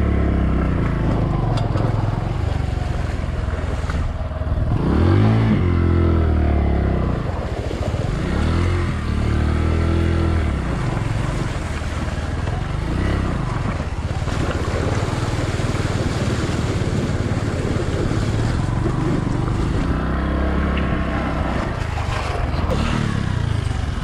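Bajaj Boxer 150X motorcycle's single-cylinder four-stroke engine running through a shallow stony river, its revs rising and falling several times, with water rushing around the bike.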